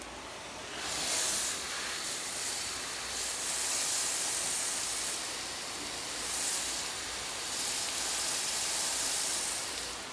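Water hissing out of a spray nozzle in a steady spray, starting about a second in.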